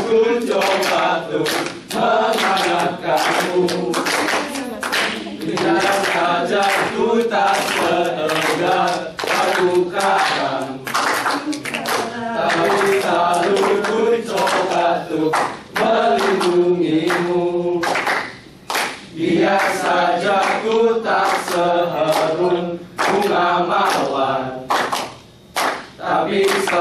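A group of men singing together without instruments, with hand clapping through the song.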